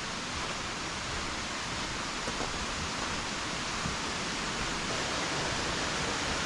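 Steady rush of water from a creek and falls in a sandstone gorge, an even hiss with no change.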